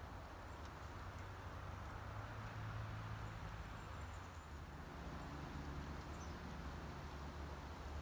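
Faint, irregular tapping of a woodpecker pecking at a suet cake through a wire cage, over a steady low outdoor rumble.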